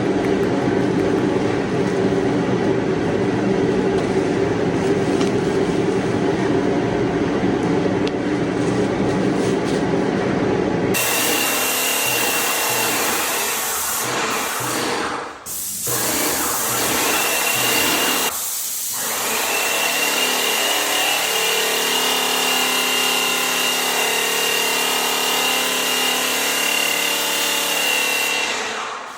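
Power tools running steadily, with an abrupt change about 11 seconds in to a noisier machine sound carrying a steady high whine, which drops out briefly twice.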